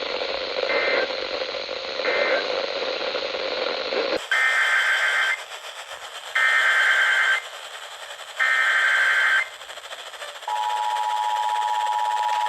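Emergency Alert System signalling heard from a weather radio. First come two short screeching end-of-message data bursts over a hissy signal. About four seconds in, the signal turns clean and three one-second SAME header data bursts follow, which open a new warning. From about ten seconds in, the steady two-tone attention signal sounds.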